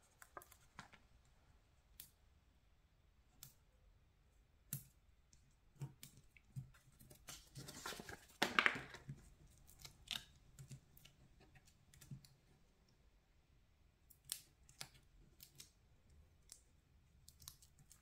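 Faint, scattered clicks and paper rustling from hands peeling small adhesive dots off their backing sheet and pressing them onto a paper card, with a longer stretch of rustling about halfway through.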